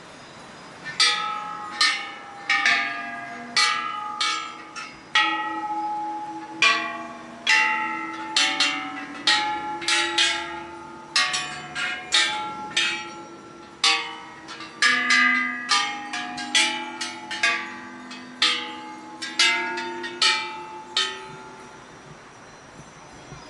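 Several Thai temple bells of different pitches struck one after another in an uneven run, about two strikes a second, each ringing on under the next. The striking stops near the end and the ringing dies away.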